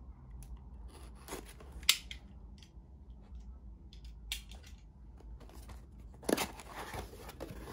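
Subscription box of card packs being opened and unpacked by hand: a few sharp clicks and snips, the sharpest about two seconds in, and a louder burst of rustling handling noise near the end.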